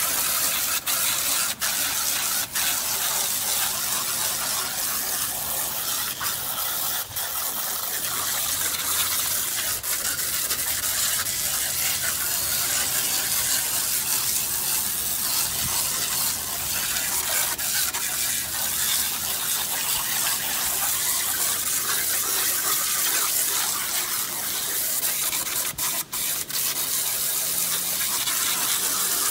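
Pressure-washer jet spraying onto weathered wooden fence boards: a steady hiss of high-pressure water with a few very brief breaks. It is the rinse that strips off the gray, sun-decomposed wood fibers.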